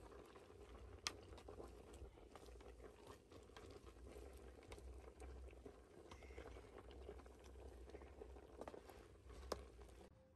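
Pot of beans and maize boiling faintly over a wood fire while a wooden spoon stirs it, with a haze of small crackles and ticks. Two sharp clicks stand out, about a second in and near the end.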